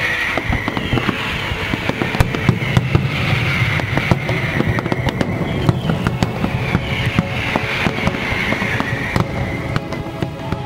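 Fireworks display going off in rapid succession: a dense run of sharp cracks and bangs over a continuous low rumble.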